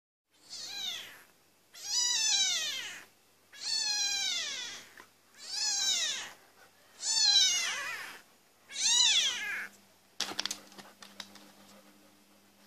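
A very young calico kitten mewing six times in a row, high-pitched calls about a second long that each rise briefly and then fall in pitch. After the last mew there are a few faint clicks and scuffs.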